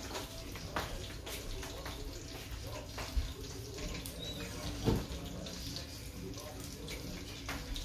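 Garlic butter and sauces sizzling in pans on a gas stove: a steady frying hiss with many small crackles, and a knock about five seconds in.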